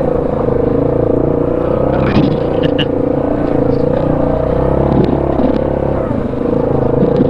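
ATV engine running steadily at low speed while the quad crawls in four-wheel-drive low up a rocky trail, with a few short knocks from rocks under the tyres a couple of seconds in.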